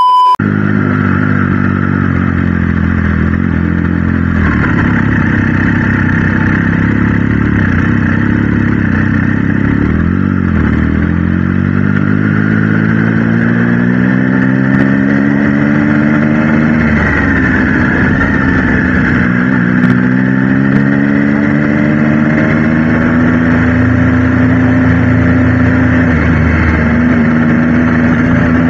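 Triumph Trident 660's three-cylinder engine running under way, its pitch climbing as it accelerates and dropping back several times as the throttle eases off.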